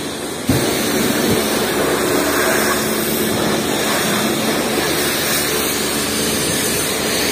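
Steady machine noise with a spraying hiss from self-service car wash equipment. It comes in suddenly about half a second in and then holds steady.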